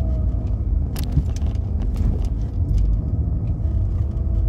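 Steady low rumble of a car driving slowly, heard from inside the cabin, with a single sharp click about a second in.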